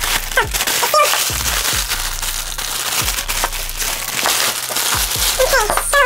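Plastic packaging and cardboard crinkling and rustling as a boxed hair dryer is unpacked by hand, a dense run of crackles and clicks.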